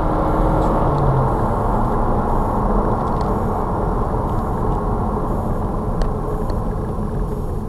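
A car driving at speed, with steady road and engine noise; a low engine tone fades out about a second in.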